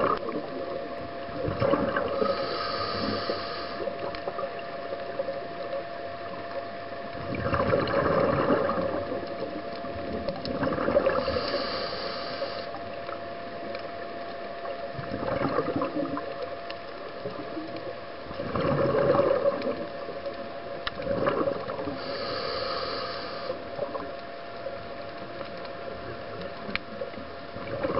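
Scuba diver's regulator breathing underwater: slow breaths several seconds apart, each a hissing inhalation or a gurgling rush of exhaled bubbles, over a steady faint tone.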